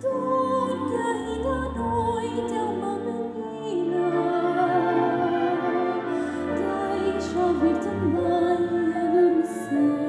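A woman's solo voice singing over a live chamber ensemble of strings, winds, double bass and timpani.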